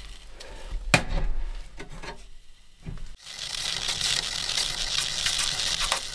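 A metal wood-stove door latch clicks shut about a second in. From about three seconds in, a pot of snow melting into water on the hot stove top gives a steady hiss with fine crackling bubbles as it comes toward a boil.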